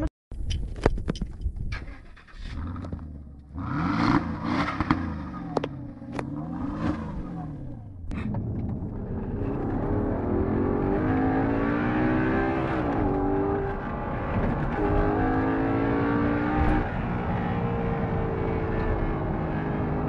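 A Bentley's V8 revved hard through its twin exhaust tailpipes, its pitch sweeping up and falling back several times. About eight seconds in, a car engine accelerating, heard from inside the cabin, its pitch climbing and dropping back twice at gear changes.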